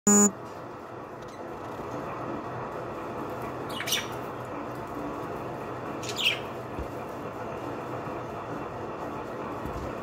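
Budgerigar giving two short squawks, about four and six seconds in, over steady background noise. A brief loud tone sounds at the very start.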